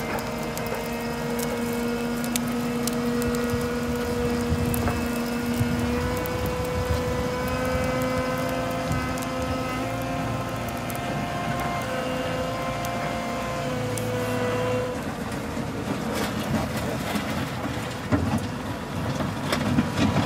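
Wheel loader running under load as it pushes brush and soil with a front-mounted dozer blade: a steady mechanical hum with a whine over it that shifts pitch a few times and drops away about three-quarters of the way through, with scattered short cracks and clicks.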